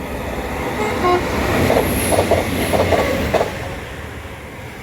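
A train passing close by: a rumble that builds, peaks for a couple of seconds with a run of sharp clattering knocks, then fades away.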